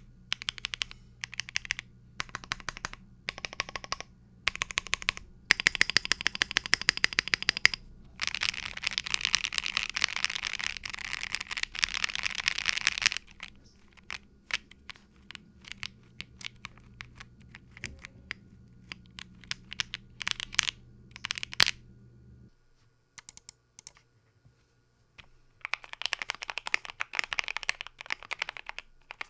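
KBDFans Tofu60 mechanical keyboard with lubed Banana Split linear switches, built plateless and tape/tempest-modded, being typed on: short runs of keystrokes, a long fast run in the middle, then scattered presses with brief pauses.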